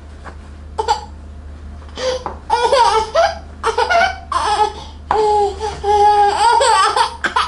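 Seven-month-old baby vocalizing in a string of high-pitched bursts that bend up and down in pitch, the longest held for about two seconds near the end.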